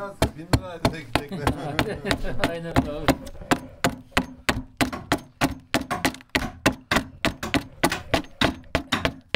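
A round-edged keser (carving adze) chopping into mulberry wood, hollowing out the bowl-shaped body of a bağlama. It strikes rapidly and evenly, about four chops a second.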